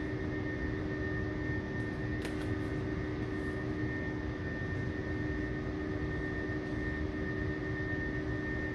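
Steady machine drone: a low hum with a higher whine over a noise bed, unchanging throughout, with a couple of faint ticks about two to three seconds in.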